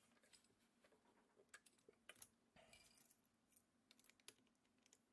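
Faint, irregular small metallic clicks and taps of lock-picking tools working the pins inside a brass padlock.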